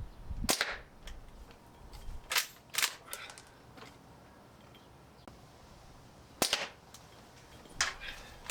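Barra 1866 lever-action air rifle firing a pellet with a sharp crack, then the lever being worked with a few clicks. A second shot follows about six seconds later, with more lever clicks near the end.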